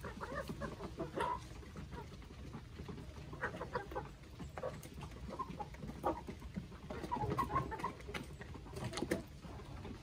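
A flock of chickens clucking as they feed, with short calls scattered throughout and bunched a little past the middle. A few sharp taps stand out among them.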